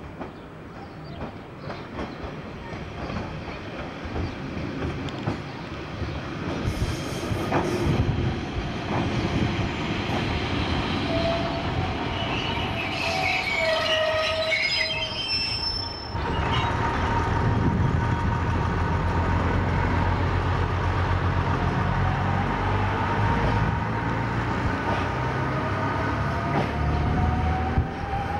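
Pacer diesel railbus approaching over the points and passing close beneath, its underfloor diesel engine running with a low rumble that builds as it nears. A few brief high-pitched squeals come about halfway through, and in the later part the engine note slowly rises as the unit pulls away.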